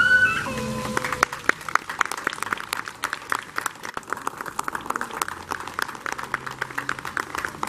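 Audience applause: many hands clapping, starting about a second in and thinning out slightly toward the end, just after a brief voice at the start.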